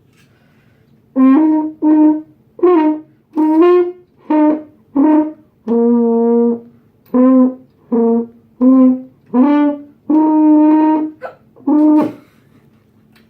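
French horn played in about a dozen short, separate notes at shifting pitches, each held for half a second to a second with breaks between. The player has the hiccups.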